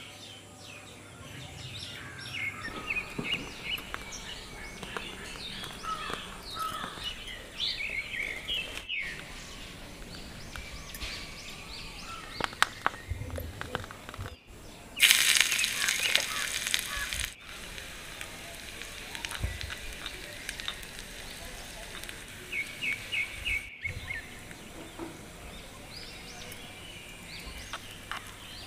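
Small birds chirping and calling over and over, with a few light clicks here and there. About fifteen seconds in, a loud steady hiss lasts a little over two seconds.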